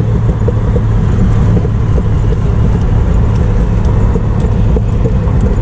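Turbocharged Chevrolet Opala inline-six running at a steady cruise, heard from inside the car as a low drone mixed with road and wind noise through an open window.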